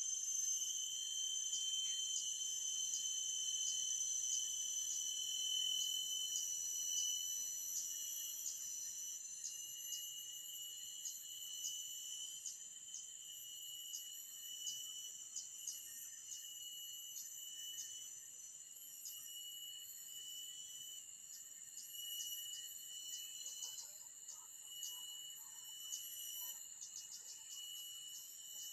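Forest insects calling: several steady, high-pitched shrilling tones layered together, with a regular ticking of about two clicks a second. A few faint short calls come in lower down near the end.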